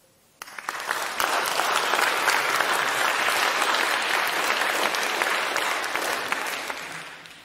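Audience applauding at the end of a poem. The applause starts suddenly about half a second in, holds steady as a dense patter of many hands, and fades out near the end.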